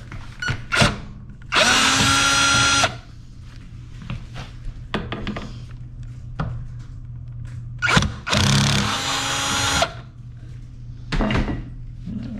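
Cordless drill-driver with a Phillips bit backing out the screws of a dishwasher's bottom kick plate: two short runs of motor whine, each spinning up in pitch and then holding steady for a second or so, about six seconds apart. Light clicks and knocks of handling come between them.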